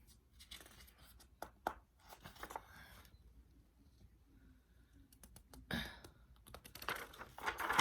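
Faint handling noises: light scratching and rustling with scattered small clicks and taps.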